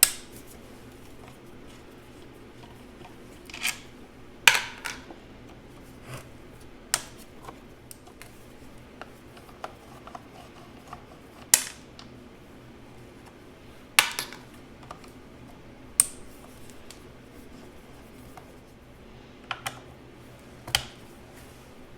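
Irregular sharp clicks and clinks of hand tools, screws and plastic housing parts being handled while the handle and motor housing come off a Porter-Cable 7724 portable bandsaw. About a dozen knocks, the loudest a few seconds apart.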